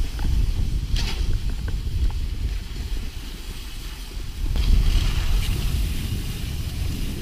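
Wind rumbling over the microphone as a cross-country skier glides downhill, with the hiss of skis running over snow swelling about a second in and again near the five-second mark.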